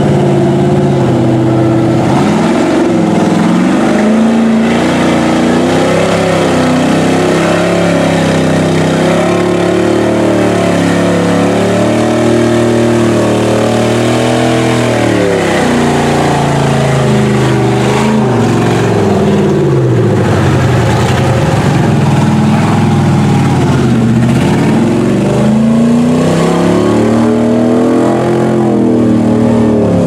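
Lifted Chevy pickup mud truck on tractor-tread tires wading through a muddy river, its engine revving up and down several times, with water and mud splashing and churning around the tires.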